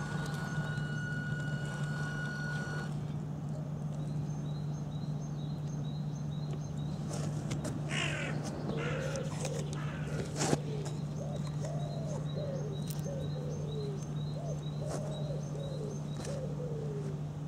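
A bird calling repeatedly in short, falling calls through the second half, over a steady low hum and a faint regular ticking. A sharp knock about ten seconds in.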